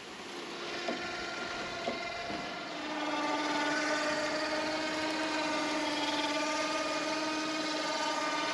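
Electric winch on a roof-top boat loader running, winding in its rope. Its motor hum holds a steady pitch and gets louder about three seconds in, with two light clicks before that.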